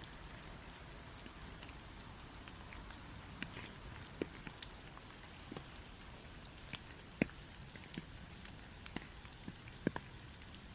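Light rain: scattered single drops ticking irregularly over a faint steady hiss.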